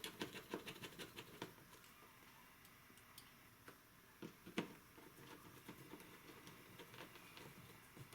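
Faint, quick light clicking, several clicks a second for the first second or so, then scattered soft clicks and taps with one sharper click about four and a half seconds in. These are small tools being handled.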